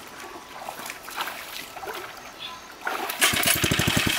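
Light splashing and dribbling of water, then about three seconds in a small engine, the lake-draining water pump's, comes in loud and running fast over a rush of water.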